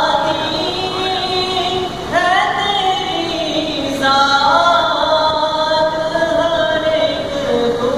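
A man singing an Urdu naat, a devotional poem in praise of the Prophet, in long held notes that slide in pitch, rising into a new phrase about two seconds in and again about four seconds in.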